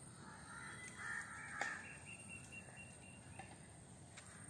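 A crow cawing twice in the first half, with a single sharp click at about one and a half seconds in, over faint outdoor background.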